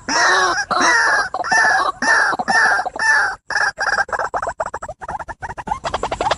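White-breasted waterhen calling: a series of arched, croaking notes at about two a second, then speeding up into a rapid run of short notes in the second half.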